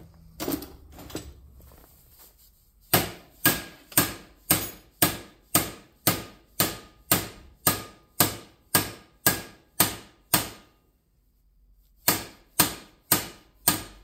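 Hand hammer striking a small steel bracket laid on a bench vise, about two sharp metallic blows a second, each ringing briefly. A run of fifteen blows is followed by a pause of over a second, then four more. The hammering dimples a countersink into the sheet metal by hand.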